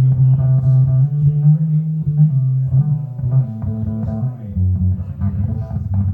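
Recorded music played over hi-fi loudspeakers, likely the Magico S3 pair being demonstrated: a strong bass line under plucked, guitar-like notes. The bass shifts to a lower note about four and a half seconds in.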